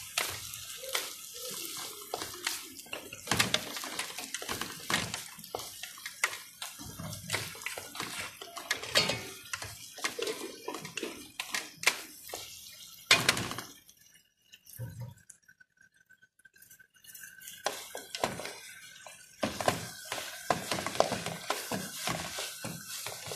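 A utensil clinking and scraping against a pan as okra is stirred while it sautés with garlic. The clatter stops for about four seconds past the middle, leaving a faint steady tone, then starts again.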